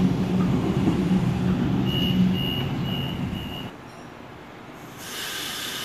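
A Sydney Trains Waratah (A set) electric train running through the station with a loud, steady rumble and hum that drops away suddenly a little past halfway. Over it come four evenly spaced high beeps, the door-closing warning of the train at the platform before it departs. A hiss rises near the end.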